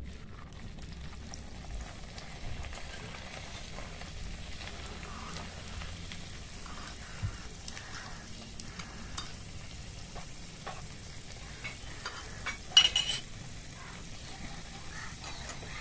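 Hot oil sizzling and crackling steadily as a dough-wrapped noodle puff deep-fries in a small kadai, with a spoon stirring through the oil. One short, louder burst near the end.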